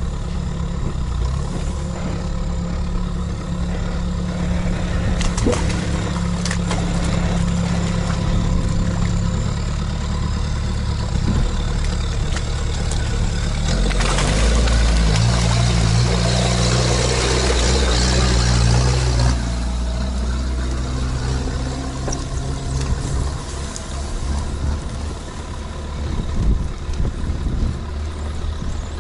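All-terrain vehicle engine running steadily; about halfway through it revs up under load for roughly five seconds, with a broad rushing noise, then drops back to a steady run.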